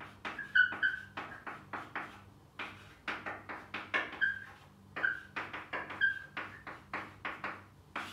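Chalk writing on a chalkboard: a quick run of tapping, scratching strokes, with short high chalk squeaks a few times.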